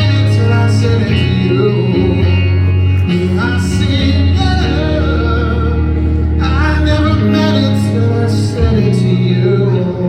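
A live rock band with guitar and bass playing a ballad, with sustained, wordless sung lines over it.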